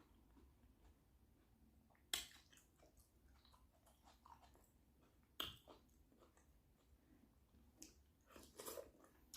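Close-miked eating sounds of a person chewing a shrimp boil: soft, quiet chewing, broken by two sharp bites or crunches about two and five seconds in and a short run of them near the end.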